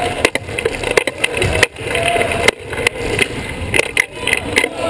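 Sports wheelchair rolling across a hardwood court, heard up close from its own frame: a steady rumble with several sharp knocks and rattles, and a few short squeaks.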